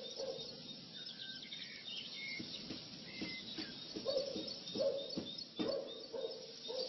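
Wild birds calling: short high chirps and whistles, then a run of lower repeated notes, with a few faint clicks.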